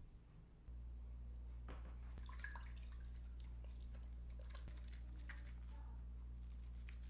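Wet hands dipping a bar of homemade coconut oil soap in a bowl of water and rubbing it. Faint drips, small splashes and squishy lathering sounds begin about two seconds in, over a steady low hum.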